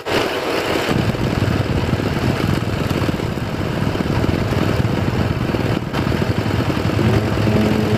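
An engine running steadily, a low rumble with no change in speed.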